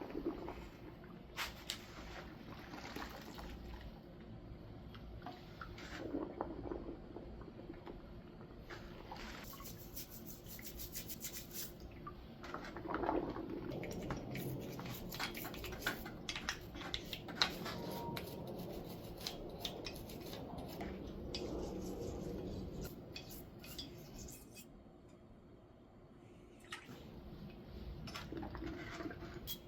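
Honed motorcycle cylinder being washed: metal clattering and clinking as it is handled and scrubbed, with liquid splashing and rubbing, in uneven spells with a quieter patch near the end.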